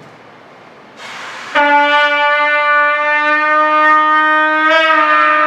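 A brassy horn sounding one long, loud, steady note, starting about a second and a half in after a short hiss, with a slight wobble in pitch near the end.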